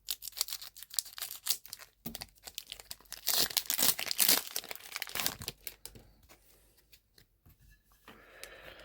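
A foil Pokémon booster pack being crinkled and torn open, with many small crackles and a longer, louder tearing stretch a little past the middle. It quietens over the last few seconds.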